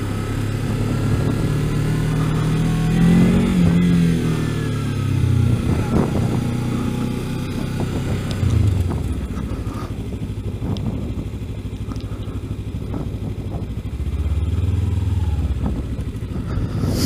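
Kawasaki Ninja 300's parallel-twin engine riding at low speed. It rises in pitch about three seconds in, then falls away and settles to a lower, steadier note, with a short rise in revs near the end.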